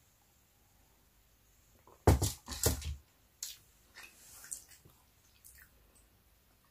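Gulps and mouth sounds of drinking coffee from a mug close to the microphone, loudest in a short cluster about two seconds in, followed by smaller mouth and handling noises.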